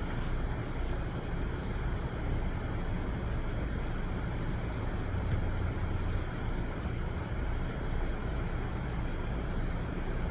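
Steady low rumble and hiss of background noise, even throughout, with no clear single event.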